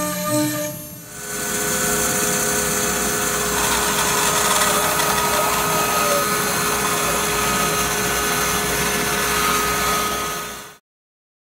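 CNC router spindle cutting walnut, a steady pitched whine, for about the first second. Then a band saw runs steadily while a walnut piece is fed through it, until the sound cuts off suddenly near the end.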